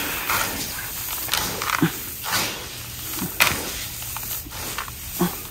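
Hands stirring and scooping a dry feed mix of maize grains and bran in a plastic tub: a grainy rustling, with a short rattle of grain falling back about once a second.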